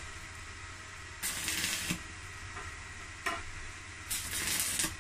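Megatec mini inverter stick welder striking short tack-weld arcs with a 2.6 mm rod: a crackling sizzle in three bursts. The first comes about a second in, a brief strike follows just past three seconds, and the last comes near the end, each under a second long.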